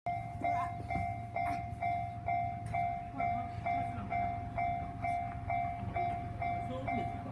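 Japanese railway level-crossing warning bell ringing: an electronic clanging tone repeating evenly, a little over twice a second, over a steady low hum.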